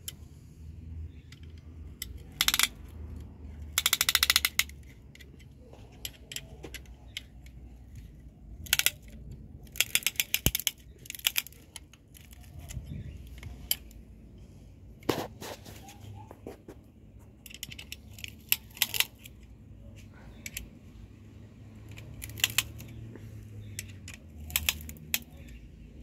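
Ratchet of a band-type piston ring compressor clicking as it is tightened around a piston with its key, in short bursts of rapid metallic clicks, over and over.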